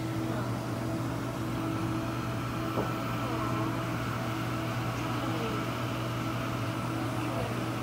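Steady mechanical hum of aquarium pumps and filtration equipment, with a few faint short chirping glides and a single soft click nearly three seconds in.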